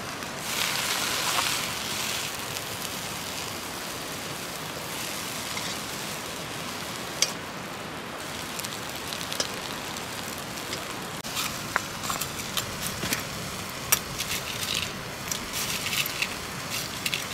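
Wood fire crackling under an iron wok of nettle greens, with a steady hiss of cooking. A louder hissing surge comes about half a second in, and scattered sharp clicks and light knocks follow in the last several seconds.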